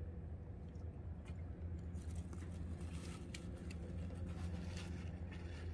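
Steady low mechanical hum with faint scattered crackles and ticks, which grow busier about two seconds in.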